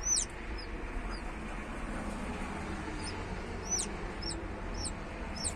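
Newly hatched chicks peeping from the nest: short, very high chirps that fall in pitch, coming irregularly, several in quick succession about a second in and again from about three seconds on.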